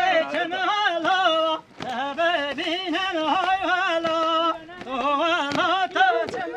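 Middle Eastern-style Kurdish wedding dance music, led by an ornamented melody that wavers and slides between notes in long phrases, with a few sharp percussive hits.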